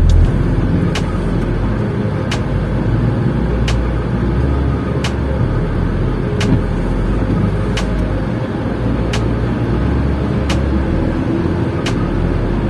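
Car engine rumbling low and steady, heard from inside the cabin, with a sharp tick repeating evenly about every second and a half.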